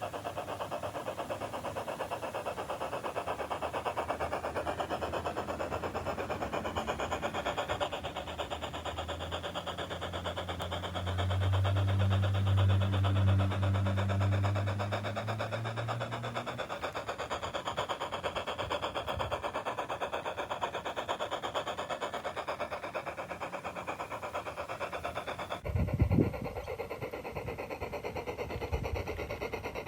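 A machine running steadily with a fast, even whirr. A deeper hum swells in the middle, then fades. About 26 seconds in, the sound changes suddenly with a short thump.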